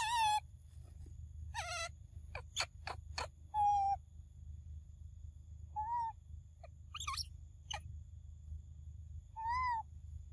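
Young macaque giving short, high coo calls, about six of them spaced a second or two apart. Three sharp clicks come close together about two and a half seconds in.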